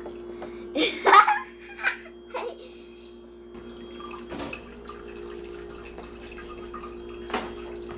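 A young girl laughs and squeals in a few short bursts during the first few seconds. Under it runs a steady low hum with trickling water from the toy sink's running faucet.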